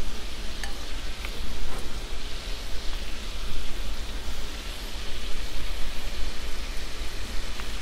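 Chicken pieces sizzling steadily in oil in a skillet on the stove, with a few faint clinks of a spoon against a pot.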